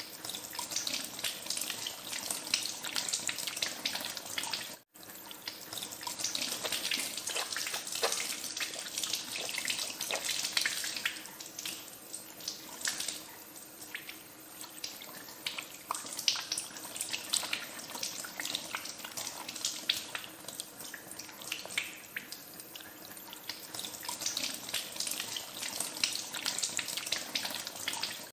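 Water running from a tap into a sink while hands are washed under the stream, with irregular splashes. The sound cuts out for an instant about five seconds in.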